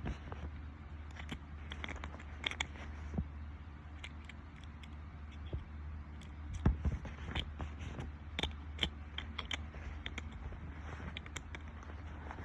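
Small clicks and scrapes of an Apple AirTag being handled as its coin-cell battery is fitted back in, with one louder knock a little past halfway, over a low steady hum. No start-up chime sounds because the tag's speaker has been removed.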